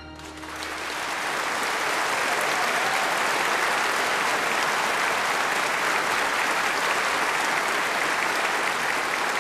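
Concert audience applauding at the end of a song. The applause swells over the first second as the last held note fades out, then carries on steadily.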